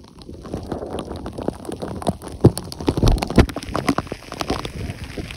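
Rain falling on the phone and on rain gear close to the microphone: a dense run of irregular taps. Several heavier knocks about two and a half to three and a half seconds in come from handling the phone as it is swung around.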